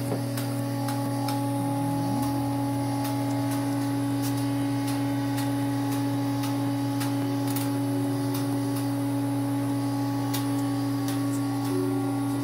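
DermaSweep microdermabrasion machine's vacuum pump running with a steady hum while its suction tip is drawn over the skin, with scattered light clicks.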